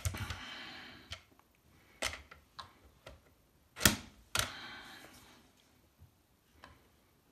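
Hard plastic and aluminium parts of an electric pole saw knocking and clicking as the pole section is worked into the motor head's coupling, with short sliding scrapes. There are a few knocks, the sharpest about four seconds in.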